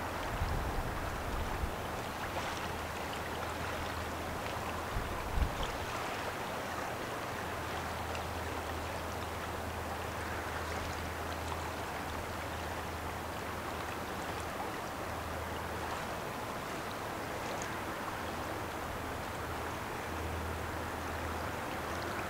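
Steady rushing of the St. Clair River's current along the shore, over a low steady hum. A few low thumps break in during the first two seconds and again about five seconds in.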